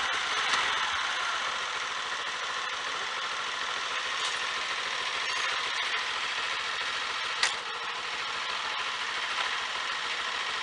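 Honda Fan 125 single-cylinder four-stroke engine idling steadily, with one sharp click about seven seconds in. No chain rubbing is heard: the plate by the chain has been put back in its correct position.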